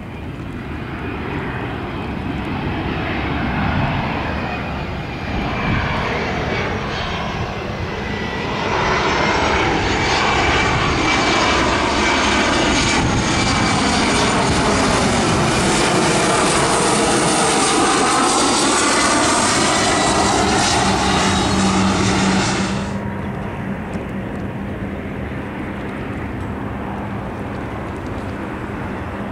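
Boeing 737 Classic jet on final approach, its turbofans growing louder as it passes low overhead, the roar sweeping with a phasing whoosh. About three-quarters of the way through the sound cuts off abruptly and is replaced by the quieter, steadier jet noise of another airliner approaching in the distance.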